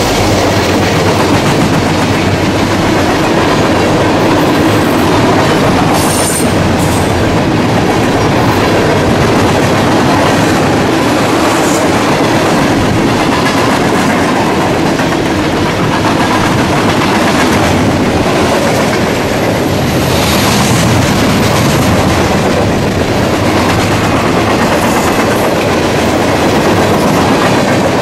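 Freight train rolling past at speed: a line of boxcars and tank cars, their steel wheels running over the rails in a loud, steady din.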